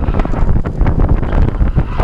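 Loud wind buffeting on the microphone in the open cockpit of a 2005 Honda S2000 roadster with its top down, the car running underneath the rushing noise.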